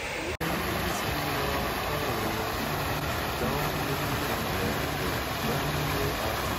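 Steady rush of fountain water spraying and splashing into the pool; it comes in after a brief break just under half a second in.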